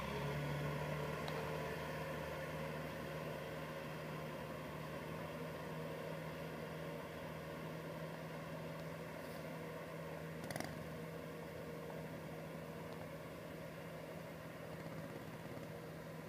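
Kubota M6040SU tractor's diesel engine running steadily as it drives a rotary tiller through flooded paddy mud, slowly fading as the tractor moves away.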